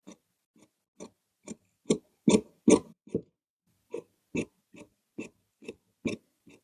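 Tailor's hand work at the cutting table: a run of about fifteen short, crisp strokes, roughly two a second, loudest a little before the middle.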